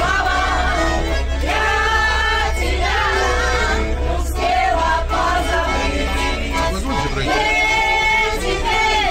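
Live singing of a lively song, a woman's voice leading with others joining in, accompanied by an accordion.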